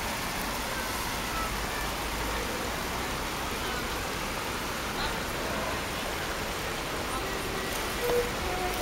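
Steady outdoor background noise with faint distant voices; a few sustained musical notes come in near the end.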